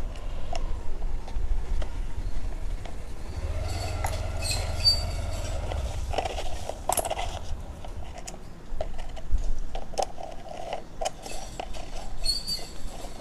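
Metal coins clinking and scraping as a hand picks them up and shifts them around a pile on newspaper, with short clicks throughout and a couple of brief bright rings, over a steady low background rumble.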